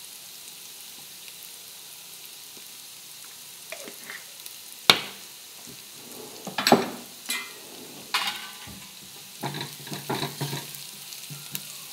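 Chopped onion, ginger and garlic sizzling softly in a frying pan on a gas hob. A few sharp clicks and taps come in the middle. Near the end a spoon scrapes and knocks in the pan as the mixture is stirred.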